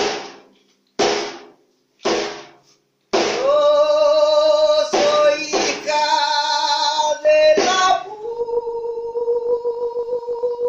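A caja, an Andean frame drum, struck slowly three times, about once a second. Then a woman starts singing in a high voice in long held notes, with a few more strokes on the drum, and ends on one long held note.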